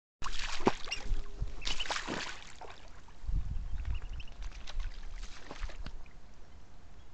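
Water splashing and sloshing from ducks paddling and dabbling in shallow water right by the microphone, loudest in the first three seconds and then settling to lighter sloshing, with a few faint short high chirps.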